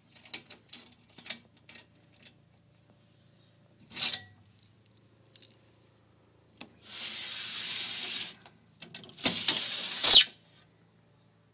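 Lace monitor moving and feeding in bark-mulch substrate as it takes food from metal feeding tongs: scattered light clicks and scrapes, then two longer rustling noises, the second near the end the loudest.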